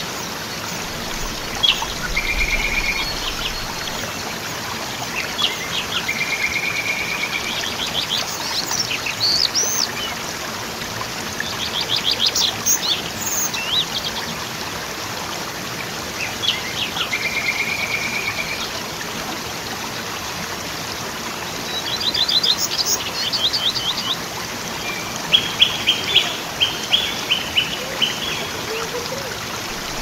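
Steady rush of a waterfall with songbirds calling over it: scattered chirps, quick trills, and a short buzzy note that recurs several times.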